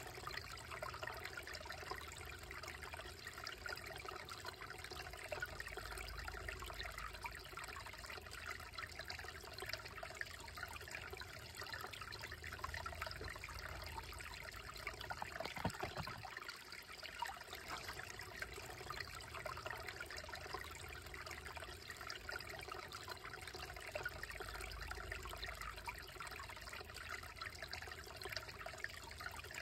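Shallow woodland creek trickling steadily over stones and a small cascade between boulders. A single brief knock about halfway through.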